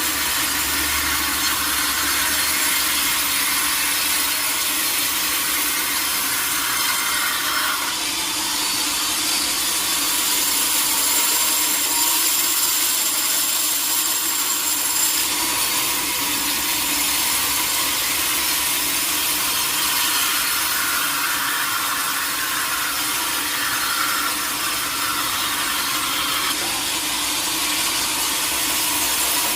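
Sawmill saw cutting lengthwise through a teak log. It makes a steady, continuous cutting noise that sits mostly high up, over a low steady hum.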